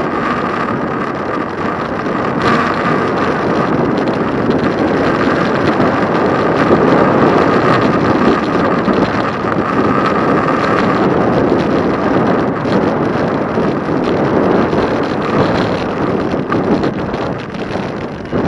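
Wind rushing over the microphone, mixed with road noise, while riding an e-bike along a street. A faint steady whine runs under it for the first half and fades out about eleven seconds in.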